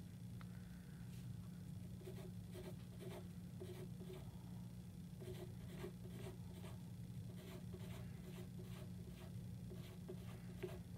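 Pencil sketching on paper: quiet short scratching strokes, about two a second, over a faint steady low hum.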